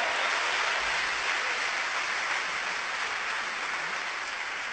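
Audience applauding: a dense, steady clapping that slowly fades.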